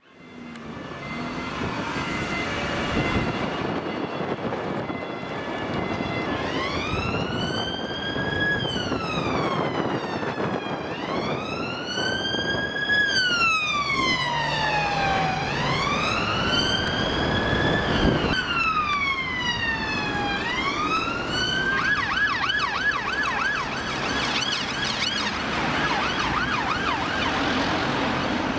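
UK police car siren on the wail, rising and falling slowly about every four seconds, then switching to a fast yelp about three quarters of the way through, over passing traffic.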